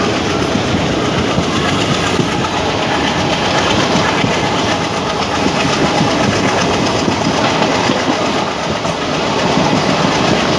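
Express passenger coach running along the track, heard from its open doorway: loud, steady running noise of the wheels on the rails.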